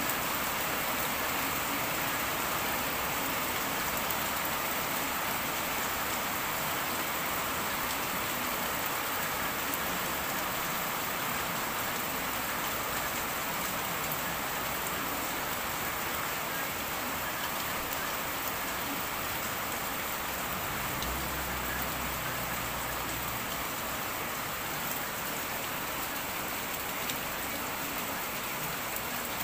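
Steady rain falling, an even unbroken hiss. A brief low hum joins in about two-thirds of the way through.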